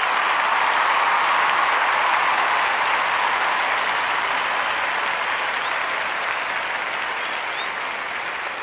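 Applause from a crowd, loudest early on and slowly fading.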